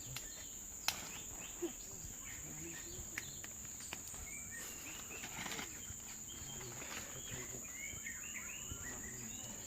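Steady high-pitched drone of insects, with small birds chirping in short rising and falling notes, thickest in the second half, and a single sharp click about a second in.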